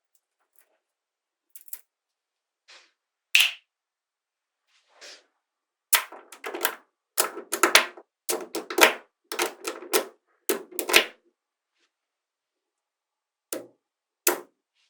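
Small magnetic balls snapping and clicking together as they are built up. A few single clicks, then a quick run of clattering clicks lasting about five seconds, and two more clicks near the end.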